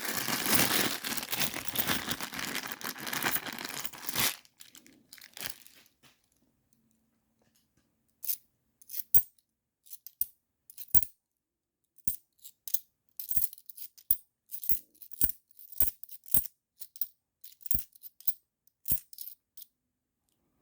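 50p coins rattling and sliding for about four seconds as a handful is tipped and shuffled, then, after a short pause, a run of single sharp clicks as coins are set down one at a time on a hard surface.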